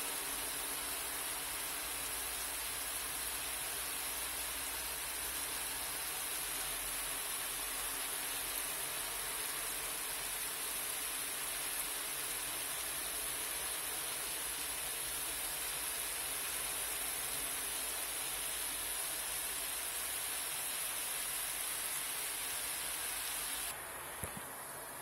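Mushrooms and mixed vegetables sizzling steadily as they sauté in butter in a wok, an even hiss. The sizzle cuts off suddenly near the end.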